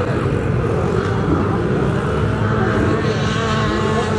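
Small children's motocross bikes running on a dirt track, several engines revving with pitches rising and falling over one another.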